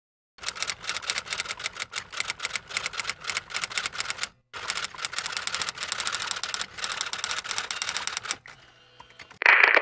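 Typewriter typing sound effect: rapid key clicks in two runs with a short break between them. A louder burst of noise starts just before the end.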